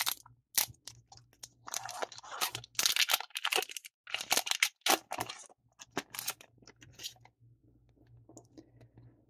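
A foil trading-card booster pack wrapper being torn open and crinkled, with the cards pulled out of it: a run of sharp crackles and short tearing rips, thinning out to faint handling of the cards about seven seconds in.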